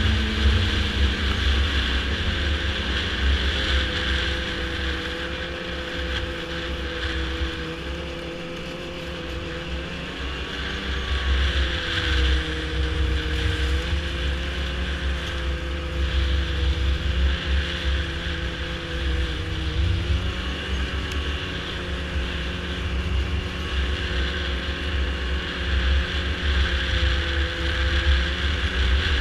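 Yamaha snowmobile engine running at steady trail speed, easing off briefly about a third of the way in before picking back up. Wind buffets the microphone throughout.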